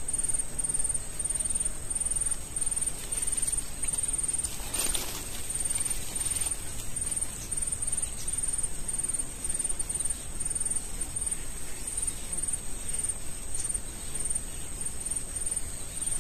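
Insects keeping up a steady high-pitched drone over a constant rustling background, with one short burst of noise about five seconds in.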